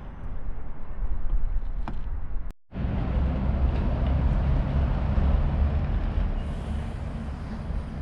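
Low engine rumble of a city bus at a railway level crossing, broken by a brief silent gap about two and a half seconds in.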